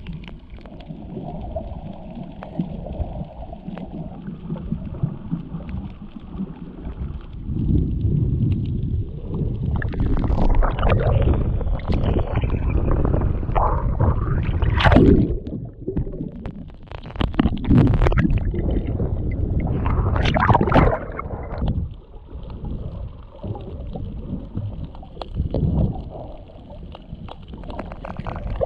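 Water sloshing and gurgling around a GoPro held at and just under the surface while snorkelling, with louder stretches of splashing in the middle.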